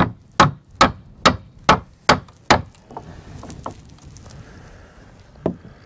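Hammer blows on wood: a run of about seven hard, evenly spaced strikes a little over two a second, then a few lighter knocks and one more blow near the end. A wedge is being driven in to hold the bent beam shelf timber in place against the frames.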